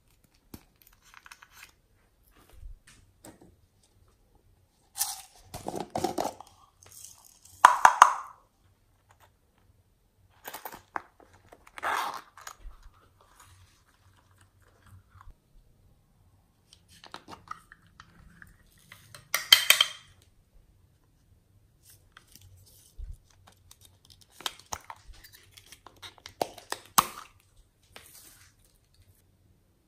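Scattered short crinkles, squelches and taps from hands handling slime-making materials: a foam squishy toy squeezed, and a plastic piping bag of clay squeezed out over slime in a glass dish.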